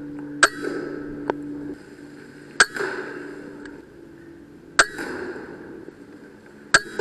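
Four sharp shots from a .22 PCP air rifle, about two seconds apart, each with a brief echo after it.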